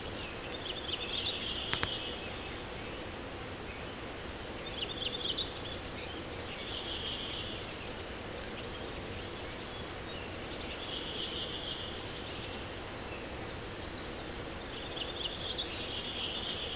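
A small bird singing a short trilling phrase every four to five seconds over a steady outdoor background hiss, with one sharp click about two seconds in.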